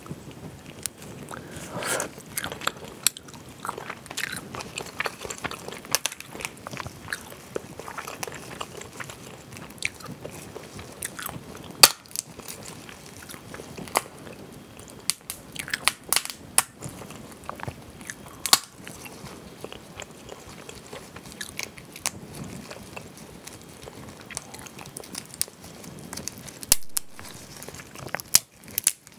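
Boiled crayfish shells cracking and snapping as gloved hands peel spicy mala crayfish, close to the microphone, with wet chewing in between. The cracks come at irregular times, the sharpest a little before the middle and about two-thirds of the way through.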